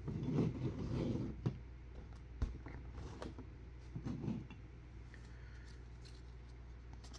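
Baseball trading cards being handled: a card set into a plastic display stand, then a stack of cards leafed through in the hands, giving scattered light clicks and rustles over a steady low hum.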